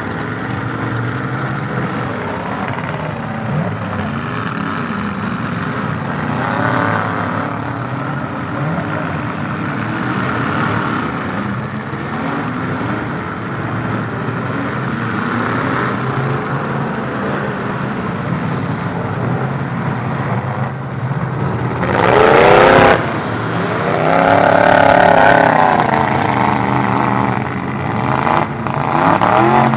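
Demolition derby trucks' engines running and revving hard, the pitch rising and falling again and again as several trucks accelerate and ram. About two-thirds of the way through there is one very loud burst, and a stretch of hard revving follows it.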